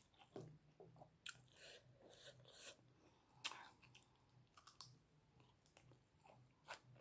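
Quiet close-up chewing and mouth sounds of a person eating: soft wet smacks and small clicks scattered through, a little louder about one second in and again near the middle.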